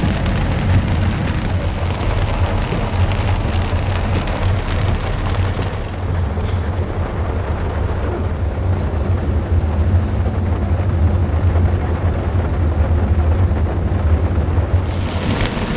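Heavy rain and wet-road spray heard inside a moving car's cabin: a steady hiss of water over a low road and engine drone. The high hiss eases about six seconds in and picks up again near the end.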